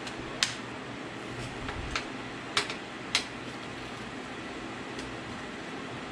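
Sharp metal clicks of a wrench on a Ford 8.8 differential's bearing cap bolts: four louder ones in the first three and a half seconds and a fainter one later, over a steady background hum.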